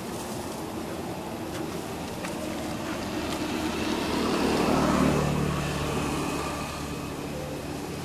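A motor vehicle passing by: engine and road noise swell to a peak about five seconds in, then fade, leaving a low steady engine hum.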